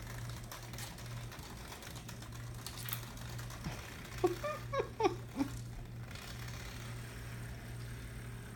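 Small motor of a battery-powered butterfly cat toy whirring steadily, with light clicks and taps as the cats bat at it. About halfway through, a cat makes a few short chirps.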